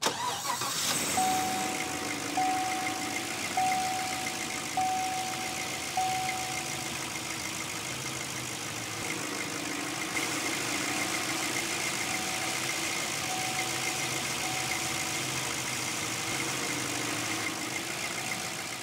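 First start of a 2014 Chevrolet Silverado's rebuilt V8 after an AFM/DOD delete with a stage 1 cam: the engine catches at once and settles into a steady idle. The truck's dashboard warning chime rings about five times, a second or so apart, then a few more times more faintly later.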